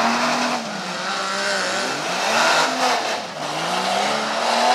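Tuff truck's engine revving hard as it drives an obstacle course, its pitch climbing and dropping back in three surges.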